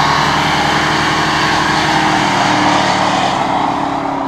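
Dodge Charger doing a burnout: the engine held at high revs while the rear tyres spin and squeal against the pavement. Loud throughout, the engine note sagging slightly and the sound easing off near the end.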